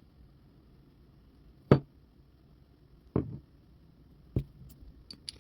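Three sharp knocks about a second and a half apart, the first the loudest, as metal tools or parts are handled at a lathe; a few light clicks follow near the end.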